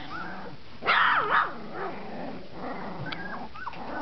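Litter of 20-day-old puppies play-fighting, their voices just coming in: high, wavering yelps and small barks. The loudest burst of calls comes about a second in, followed by scattered short cries.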